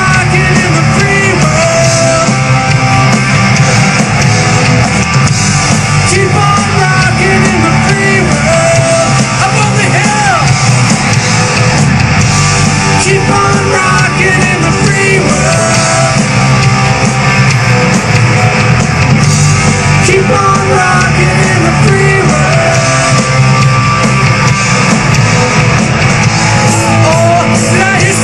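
Live rock band playing loudly: distorted electric guitars, bass and drums with a singer's voice over them.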